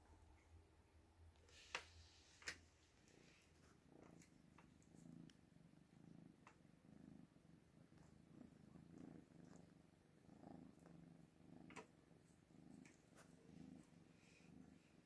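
Oriental kitten purring softly in a slow, even pulse, with a few sharp clicks about two seconds in and once more later.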